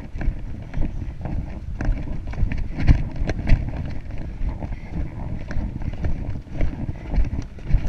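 Grey horse cantering on grass turf, heard from the saddle: a run of uneven hoofbeat thuds with short sharp clicks mixed in.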